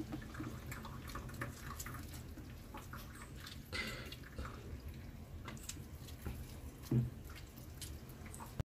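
Faint wet squishing and dripping as fruit pulp is squeezed by hand against a plastic strainer, juice dripping through into the bowl below, with a slightly louder rub about four seconds in.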